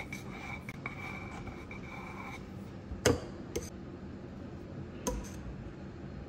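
A metal offset spatula spreading and scraping whipped cream over a crepe cake. A sharp metallic clink about three seconds in is the loudest sound, with lighter clicks just after it and about five seconds in.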